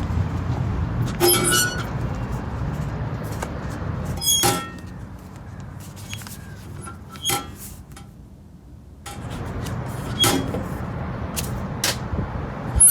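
Low rumble of traffic or a running car, with about four short squeaky clatters, roughly three seconds apart.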